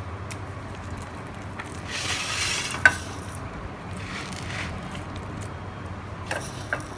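Sev (crisp gram-flour namkeen) sprinkled by hand onto a paper plate of chaat: a soft rustle about two seconds in, ending in a sharp click, with a couple of lighter clicks near the end, over a steady low hum.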